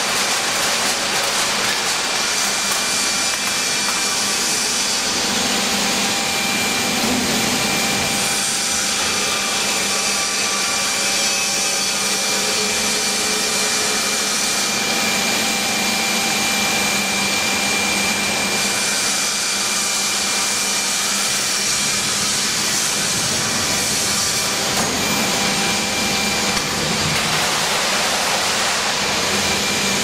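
Can densifier (can baler) for used beverage cans running: a loud, steady machine noise with a few constant whining tones held throughout.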